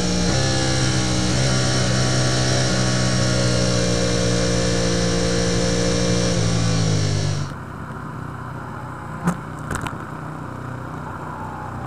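Yamaha YZF-R1 racing superbike's inline-four engine at high revs under power, with short breaks in pitch at gear changes and revs falling near the end as it eases off. About seven seconds in it cuts off suddenly to a much quieter steady background with two sharp knocks.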